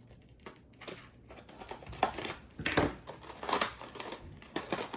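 Irregular metallic clinks and jingles, with rustling, as a pack of expandable bangle bracelets is handled and taken out of its packaging. The clinks are loudest about two to three seconds in.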